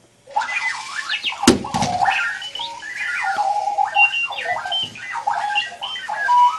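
Clocky rolling robot alarm clock sounding its alarm: an erratic run of electronic beeps and chirps that jump and glide in pitch, starting about a third of a second in. There is one loud thump about a second and a half in.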